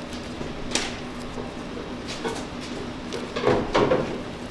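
Kitchen handling noise over a steady background hum: a few short knocks and clatters, the loudest cluster about three and a half seconds in.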